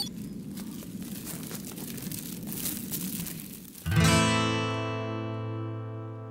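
Acoustic guitar strums one chord about four seconds in, which rings on and slowly fades as background music begins. Before it there is only a soft noise with faint crackles.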